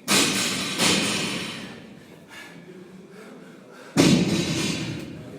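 Heavy weights landing on a gym floor: four loud thuds, two close together at the start, one about four seconds in and one at the end, each echoing away slowly.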